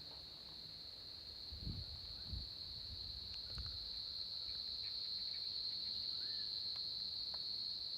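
Crickets chirping in a steady, continuous high-pitched chorus, with a couple of soft low thumps about two seconds in.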